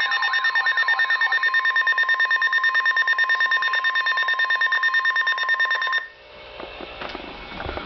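Weather alert radio's electronic alarm beeping rapidly, about eight beeps a second, sounding for an incoming severe thunderstorm warning, with a siren wail fading out in the first second or so. The beeping cuts off abruptly about six seconds in, leaving a quieter low hum.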